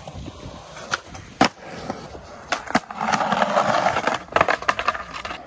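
Skateboard in action: a few sharp clacks of the board striking the ground, then louder rolling of the wheels with a quick run of clicks from about three seconds in.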